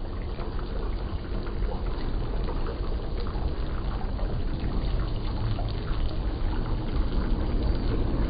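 Chapli kababs frying in a wide pan of hot fat: a steady sizzle dotted with small crackles, over a low rumble.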